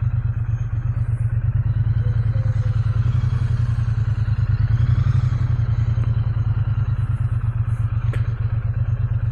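Triumph Bonneville parallel-twin engine idling steadily.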